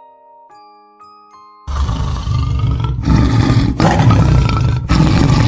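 A tiger roaring: three long, loud roars in a row, starting about one and a half seconds in. They come after a few soft chime tones.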